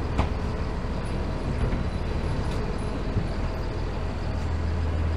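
City street traffic with buses: a steady low engine hum under a constant wash of road noise.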